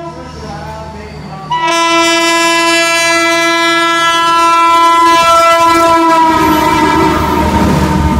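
Locomotive horn of a train: a long blast starts about a second and a half in and holds for about four seconds. Near the end its pitch drops a little and it gives way to the rumble and wheel clatter of the train rushing past.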